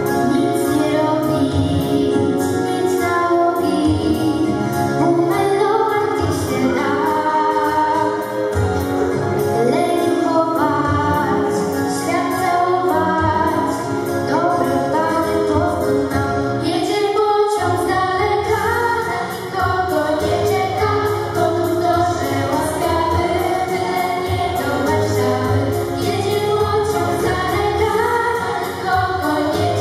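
Two girls singing a duet into handheld microphones, amplified, over backing music with a steady beat.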